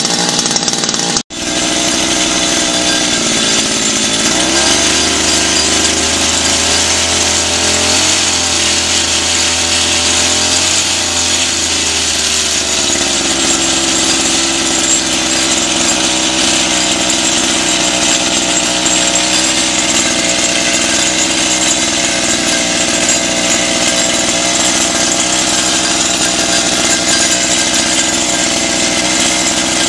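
Small 52 cc two-stroke outboard engine running continuously, with a brief break in the sound about a second in. Its pitch wavers between about four and thirteen seconds in, then it settles and runs steadily.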